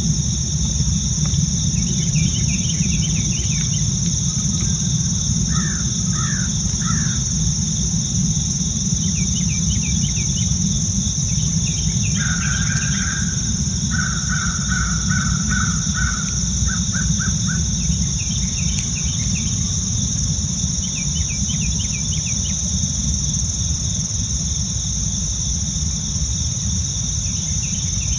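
Outdoor morning ambience in the woods: a steady high insect drone over a steady low rumble, with birds calling now and then, three quick calls early on and a longer run of repeated calls around the middle.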